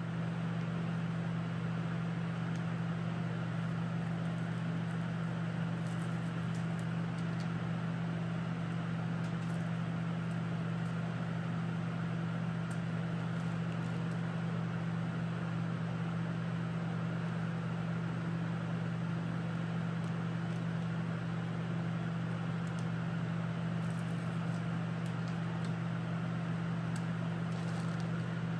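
Laminar flow hood blower running: a steady low hum under an even rush of air.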